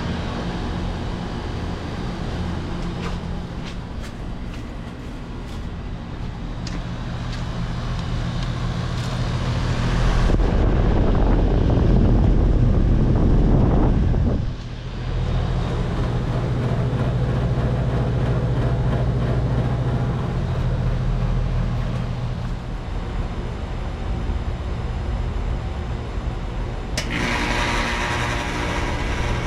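Outdoor heat pump units running in heat mode: a steady compressor and fan hum. The hum swells into a louder rumble about ten seconds in and drops back suddenly a few seconds later. Near the end a hissing noise comes in over the hum.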